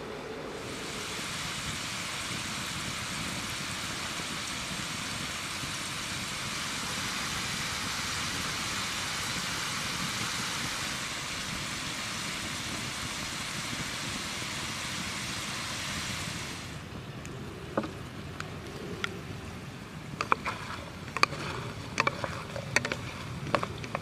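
Potato fries deep-frying in hot oil in a frying pan over a campfire: a steady, even sizzle that stops about two-thirds of the way through. Scattered sharp clicks and taps follow over the last few seconds.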